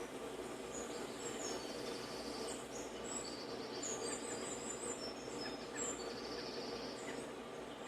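Small birds chirping and twittering, played from a bird video on a tablet's speaker, with many short high calls over a steady low hum.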